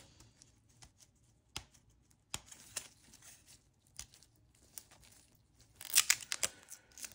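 Gloved fingers picking at the stuck end of a roll of Scotch tape, with scattered small clicks and scratches, then a short rasping run of tape peeling off the roll about six seconds in as the end comes free.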